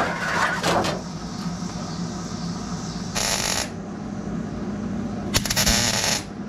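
MIG (wire-feed) welder striking an arc on a car's steel frame rail in two short crackling bursts, the first about half a second long a few seconds in, the second nearly a second long near the end.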